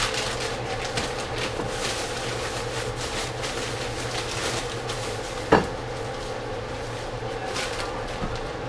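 Vegetables sizzling and crackling in a lidded frying pan on the stove, over a steady low hum. One sharp knock about five and a half seconds in.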